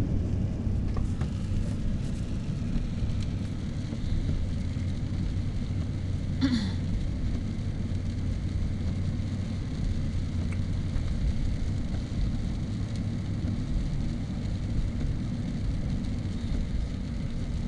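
Car cabin noise while driving: a steady low engine hum and tyre and road rumble. A brief short sound stands out about six and a half seconds in.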